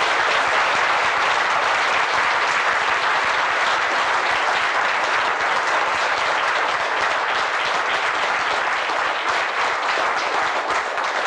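Audience applauding, a dense steady clapping that thins to separate claps near the end.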